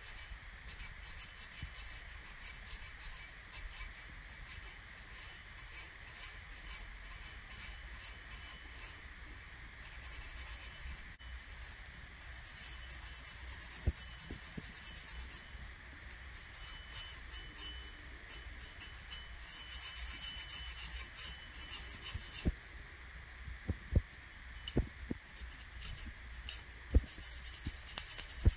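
Small gun-cleaning brush scrubbing the steel slide of a Springfield XD9 pistol around the extractor and breech face: rapid scratchy back-and-forth bristle strokes, working off carbon fouling and dirt. A few light knocks come from the parts against the mat.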